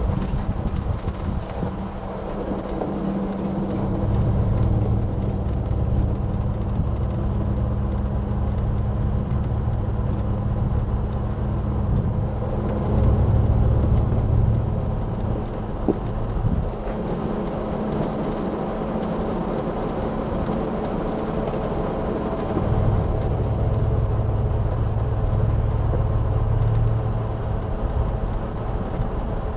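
Off-road 4WD vehicle driving slowly along a rocky dirt trail: steady engine hum with tyre and road rumble over gravel and rock, the low rumble swelling louder about three times.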